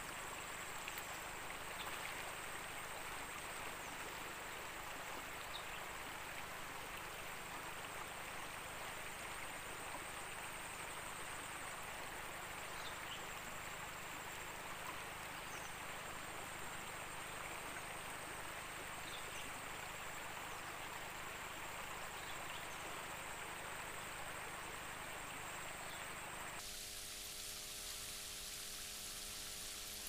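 Shallow river water running steadily, an even rushing hiss with no break; near the end the sound turns suddenly brighter and thinner.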